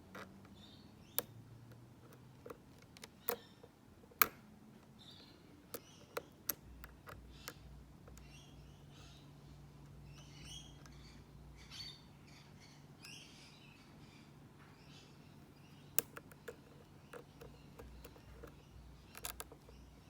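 Lock pick and tension wrench working the security pins inside a Mako brass padlock, giving irregular small metal clicks, the sharpest about four seconds in.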